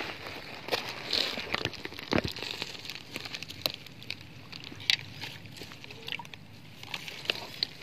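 Water sloshing and splashing from a swift river, with many irregular light clicks and ticks scattered through it.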